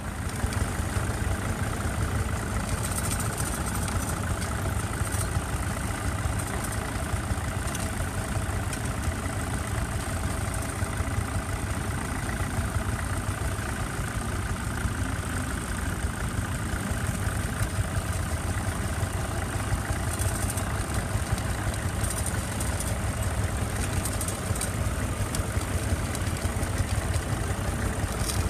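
Vintage Massey Ferguson tractor's engine running steadily under load as it pulls a mounted plough through the soil.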